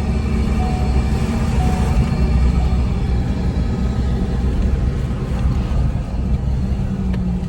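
Ford Ranger engine breathing through a Psico airbox and snorkel, running steadily at cruising speed: a steady low rumble, a bit throatier than stock. A short beep repeats about once a second during the first two seconds.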